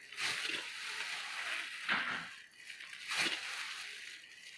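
Stir-frying in a wok: a spatula scrapes and tosses the food in three strokes about a second and a half apart, over a steady sizzle.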